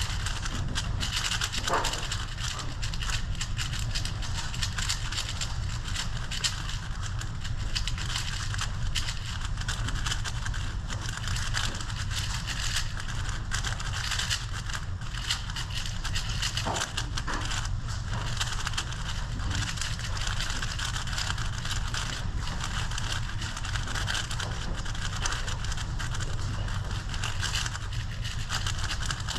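Plastic 5x5 speedcube being turned quickly and without pause, a dense run of small clicks and scrapes over a low steady hum.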